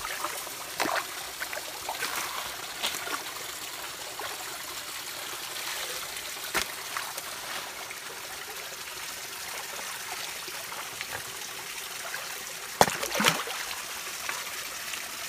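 Small shallow stream trickling steadily, with scattered light splashes and knocks as hands and legs move through the water among the rocks. A couple of louder splashes come about two and a half seconds before the end.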